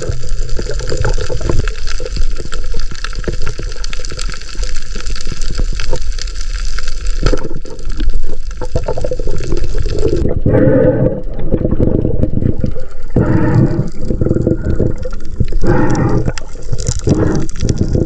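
Underwater rushing and gurgling of water against a submerged camera as a diver swims over a reef. About ten seconds in it turns into irregular louder surges.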